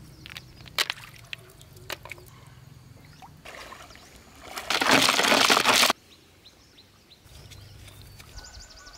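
Shallow water sloshing and splashing as a person wades through a flooded field, loudest for about a second and a half midway and cutting off suddenly. Before it come small clicks and light splashes as snails are picked by hand from the water.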